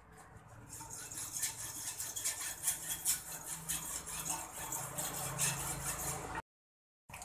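Hacksaw cutting through a valve fitting on a car LPG tank: quick back-and-forth strokes of the blade rasping on metal, stopping abruptly near the end.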